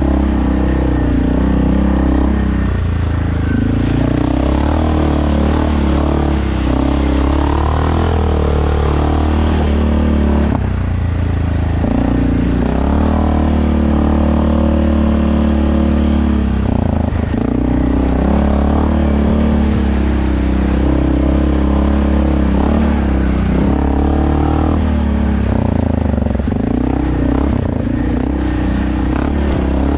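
Suzuki King Quad ATV engine running under the rider's throttle, its pitch rising and falling again and again as it speeds up and slows down.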